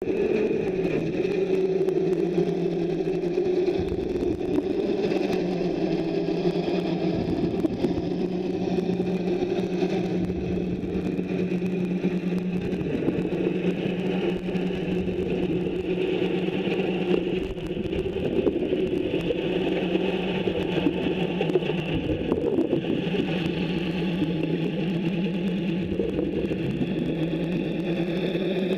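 Hose-fed rotary polishing tool running steadily against a ship's propeller blade, heard underwater: a constant machine hum with scraping and crackling from the disc on the metal.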